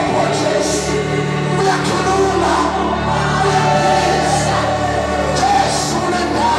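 A congregation singing a slow worship song together, many voices holding long notes.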